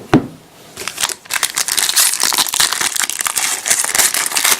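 A thump at the start, then from about a second in, sustained crinkling and tearing of a trading-card pack wrapper being ripped open.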